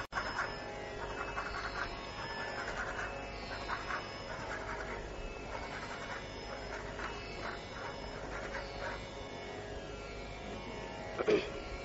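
Carnatic classical music: a soft passage of quick note clusters. The sound drops out for an instant just after the start, and a louder accented note comes near the end.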